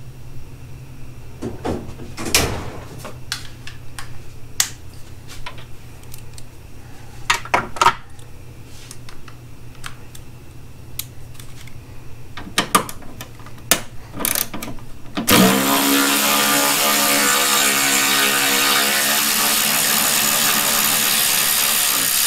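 Scattered clicks and knocks of hand tools working fender bolts. About fifteen seconds in, a cordless electric ratchet starts up: its motor rises quickly in pitch and then runs loud and steady as it drives a fender bolt.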